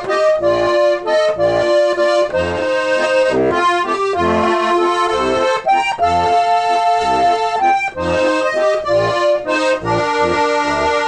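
Accordion music: a melody played over a rhythmic bass-and-chord accompaniment.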